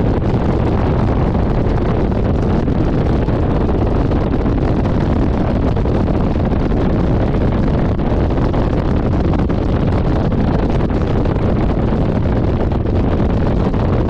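Steady wind rush on the camera's microphone on a moving motorcycle, with the bike's running and road noise blended beneath it.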